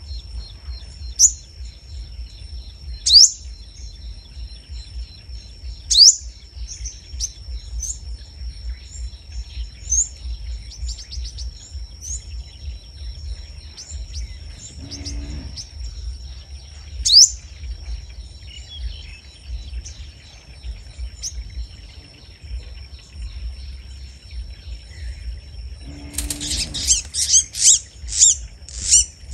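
Sunbirds giving sharp, high single chirps every couple of seconds, then a fast run of excited chattering calls near the end, over a steady high-pitched hum.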